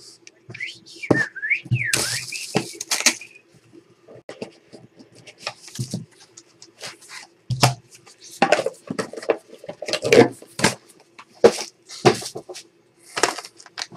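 Handling noise from trading cards, a plastic card holder and a cardboard sign being moved and set down on a table: a string of irregular clicks and light knocks. About a second in come a couple of short squeaks that bend up and down in pitch.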